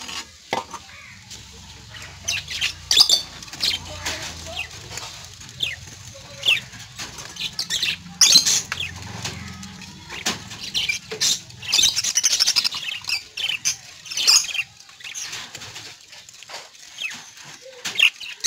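Caged birds flapping their wings and giving short high-pitched calls now and then, with sharp clicks and rattles from the wire-mesh cages as a hand pushes leaves in through the mesh.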